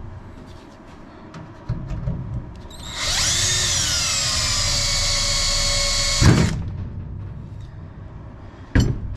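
Power drill spinning up and running for about three seconds, drilling out a bad solid rivet in an aircraft's main spar, then stopping with a thump. Light knocks come before it and a sharp click near the end.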